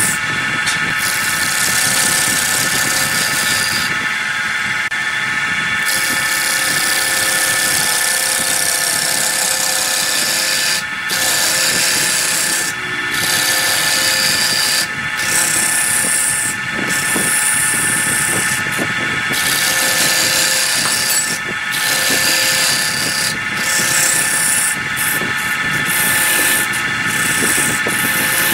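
Wood lathe spinning a large wooden disc while a hand-held gouge cuts across its face: a steady hiss of shavings tearing off over the lathe's even running tone, the cutting noise breaking off briefly every few seconds.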